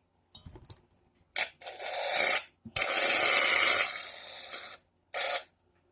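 Shaving cream sprayed from an aerosol can in several bursts of hiss, the longest about two seconds, with a short last burst near the end.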